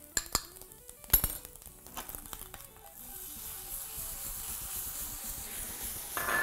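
A spoon clinks against a small bowl a few times. Then a steady sizzle builds as sauce is poured into the hot frying pan of fried tempeh and pumpkin. Soft background music plays underneath.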